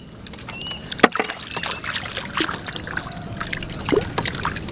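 Water splashing and sloshing against the side of a small wooden boat as a hampala is released by hand into the water, with a few sharp knocks.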